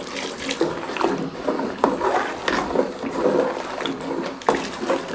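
Long metal ladle stirring milk in an aluminium pot, with the swish and slosh of the liquid and several sharp knocks of the ladle against the pot, as dissolved custard is poured in.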